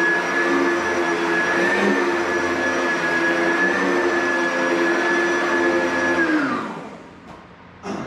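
Vacuum cleaner motor running with a steady whine, then switched off about six seconds in, winding down with falling pitch. A short click comes near the end.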